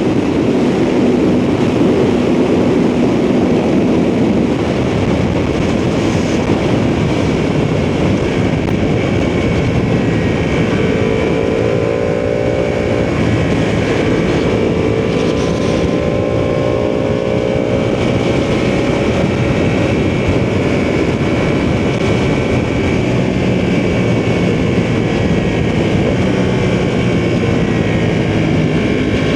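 Ducati sportbike engine running steadily at road speed, with wind rush over the microphone; its pitch climbs slowly a couple of times partway through.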